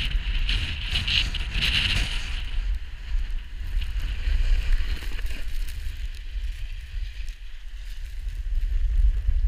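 Wind buffeting the action camera's microphone during a run down a snowy slope, a steady low rumble, with the hiss of sliding over snow, strongest in the first two seconds.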